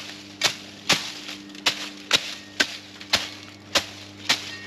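Small folding shovel chopped repeatedly into the ground, sharp strikes a little under two a second.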